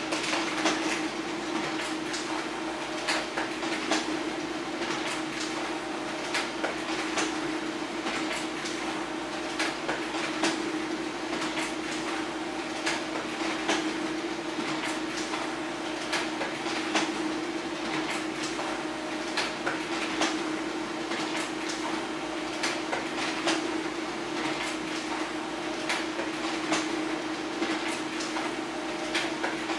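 HP LaserJet Pro M402d laser printer running a continuous two-sided print job: a steady motor hum with a constant stream of sharp clicks and clatter as sheets feed through.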